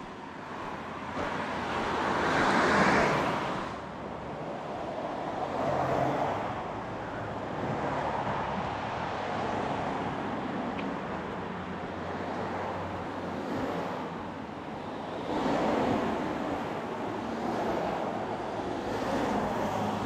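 Road traffic: several cars pass one after another, the tyre and engine noise swelling and fading each time. The loudest pass comes about three seconds in.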